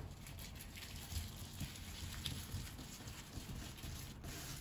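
Faint soft rustling of a thin, buttered sheet of baklava phyllo being gathered and pleated by hand on a wooden table, with a few light taps.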